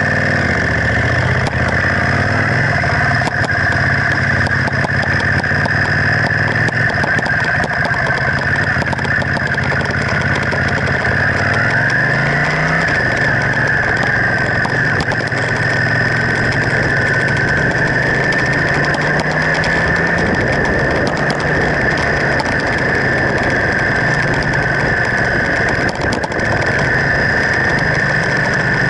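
1979 Honda CX500's V-twin engine running while the motorcycle is ridden. Its pitch climbs as it accelerates about twelve seconds in, and again some six seconds later.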